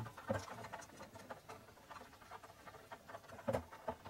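Light, scattered taps and rubbing as fingers press a rubber gasket into the groove of an aluminium valve cover, with two slightly louder knocks, one just after the start and one near the end.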